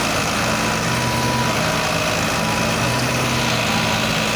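Diesel engines of two tractors, a Mahindra 575 DI and a Farmtrac 60 EPI, running steadily under load as they pull against each other in a tug-of-war.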